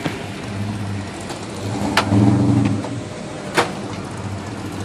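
A car engine running nearby, its low hum swelling louder about two seconds in, with a few sharp clicks or knocks: one at the start, one about two seconds in and one near the end.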